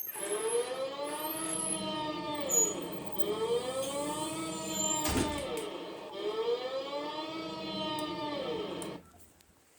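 Bosnian civil-defence siren wailing, its pitch rising and falling in three slow cycles of about three seconds each, then cutting off near the end. A single sharp knock sounds about halfway through.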